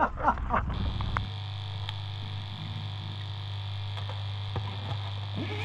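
A steady low hum with a faint high-pitched whine that comes in about a second in.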